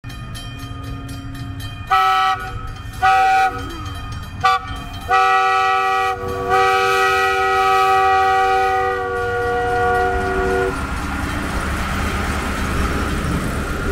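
The 1910 McKeen motor car approaching a road crossing and sounding its multi-note horn in the grade-crossing pattern: two blasts, a short one, then a long one of about five seconds. Its low running rumble continues beneath, and near the end the car passes close by with rising wheel-and-rail noise.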